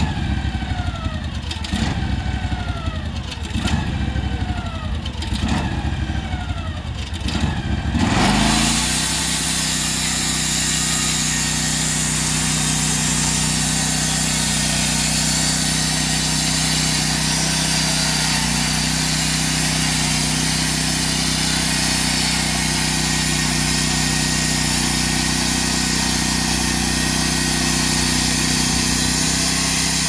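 Norwood portable band sawmill's engine running. For the first eight seconds the pitch falls in a repeated sweep about every two seconds. Then the engine settles into a steady high-speed drone with a loud hiss as the band blade cuts through the log. Right at the end the engine note drops.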